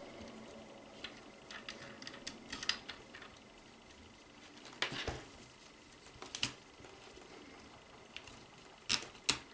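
Track of an mBot Ranger robot being stretched by hand over its drive wheels and seated: scattered light clicks and knocks, a louder knock about five seconds in, and two sharp clicks near the end.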